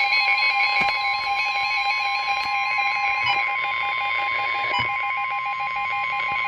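Emergency Alert System attention signal for a severe thunderstorm warning: a loud, steady electronic alarm tone, with a second tone pulsing rapidly on and off beneath it.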